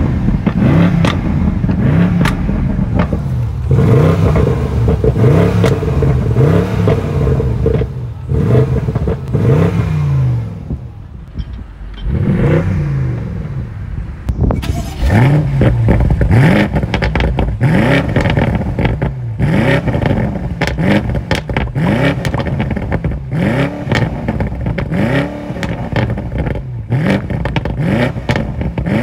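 2022 BMW M850i's 4.4-litre V8 being blipped over and over through the exhaust, the revs rising and falling about once a second, with sharp crackles between the blips. It settles back for a moment about eleven seconds in, then the blips pick up again.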